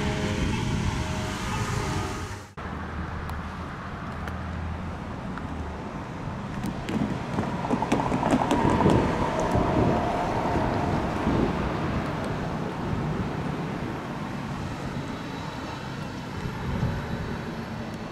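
Street traffic with wind buffeting the microphone; a vehicle passes about nine seconds in.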